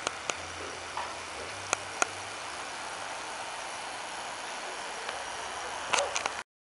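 Steady outdoor background hiss picked up by a handheld camera's microphone, with a few sharp clicks. The sound cuts off abruptly near the end.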